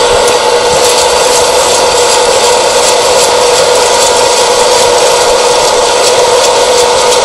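Hot-air popcorn popper roasting green coffee beans: its fan blowing a loud, steady rush with a hum, while the beans rattle and rub as they tumble and are stirred with a stick. This is the early drying stage, before first crack.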